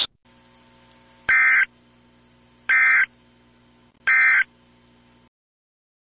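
Emergency Alert System end-of-message signal: three short bursts of buzzy SAME digital data tones, about a second and a half apart.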